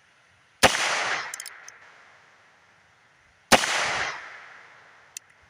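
Two shots from a Heritage Rough Rider Wyatt Earp Edition .22 LR single-action revolver firing Federal AutoMatch ammunition, about three seconds apart, each ringing out for about a second. A few light clicks follow the first shot and come again near the end.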